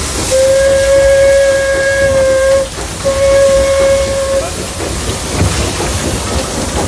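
Indian Railways Class WP steam locomotive's whistle blown twice, a long steady blast and then a shorter one on the same single pitch, heard from inside the cab with steam hissing underneath.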